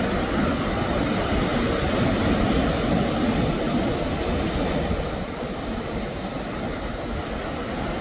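Wind buffeting the phone's microphone in a steady, unsteady low rumble, over a seaside wash of surf; it eases slightly about five seconds in.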